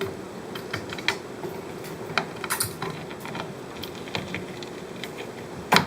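Scattered light clicks and taps of small hard objects being handled, with a louder knock near the end.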